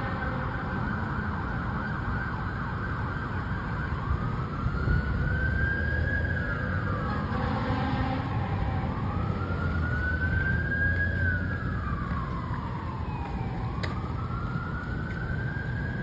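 Fire engine siren on a slow wail, rising and falling in pitch about three times, over a steady low rumble of street traffic.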